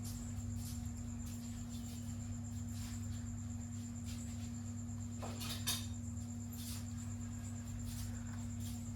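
A cat chewing raw fish: faint irregular clicks, with a short cluster of louder ones about five and a half seconds in, over a steady low electrical hum.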